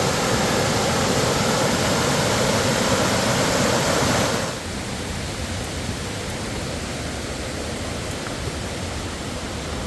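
Steady rushing noise with no distinct events, dropping noticeably in level about four seconds in and then continuing more quietly.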